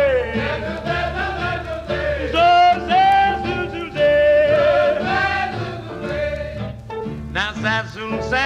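Swing jazz song: a male voice sings long, bending wordless scat phrases with a wavering vibrato over a band.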